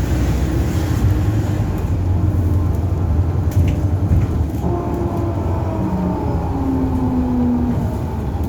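A bus under way: a low engine drone with several whining tones that shift in pitch. A higher whine comes in about halfway and slowly falls.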